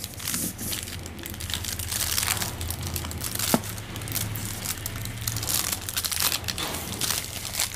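Crinkling and crackling of a chocolate bar's gold foil inner wrapper as hands unfold and peel it open, many small crackles with a sharper click about three and a half seconds in.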